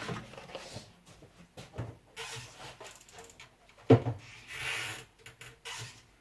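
Handling noises: scattered light clicks and rubbing, with one sharp knock about four seconds in.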